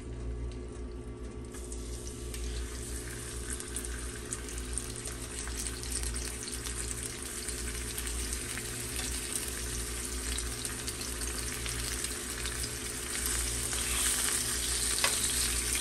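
Seasoned chicken breasts sizzling as they are laid with tongs into a hot grill pan with too much oil in it. The sizzle starts about a second and a half in and grows louder as more pieces go in, over a steady low hum.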